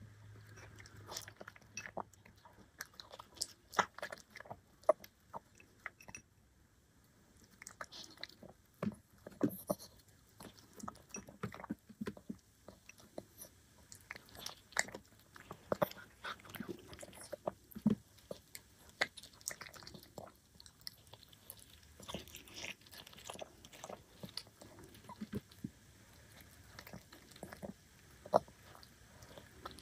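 Black poodle chewing pieces of shrimp and vegetable, a close string of wet crunches and sharp clicks of its teeth, with a brief lull about six seconds in.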